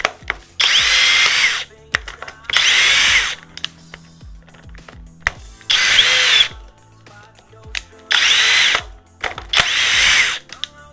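Cordless impact driver running in five short bursts of about a second each, driving screws into wood, with its motor whine rising and falling in pitch within each run.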